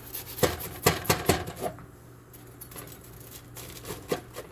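A chef's knife sawing through a toasted sandwich on a plastic cutting board: a quick run of crisp crunches as the blade breaks the toast about half a second in, then a few more crackles near the end.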